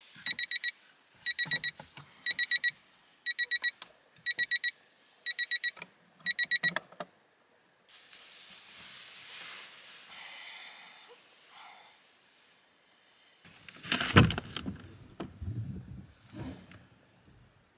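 Wake-up alarm beeping in quick groups of four, about one group a second, seven times, then stopping. Rustling follows, with a loud thump and knocks about fourteen seconds in.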